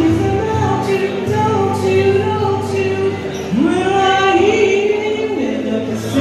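A woman singing live to her own acoustic guitar, holding long notes, with a slide up into a note about halfway through.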